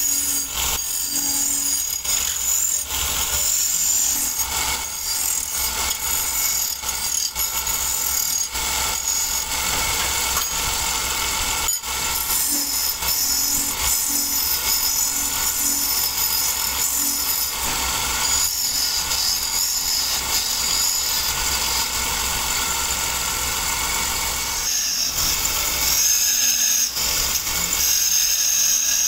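Belt-driven wood lathe running while a hand-held flat chisel cuts a spinning wooden spindle. A steady, high-pitched scraping hiss from the cut sits over the low hum of the motor.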